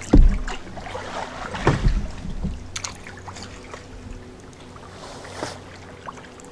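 Kayak being paddled through shallow swamp water: paddle strokes and water dripping, with a few knocks on the boat, the loudest right at the start and a cluster near two seconds in.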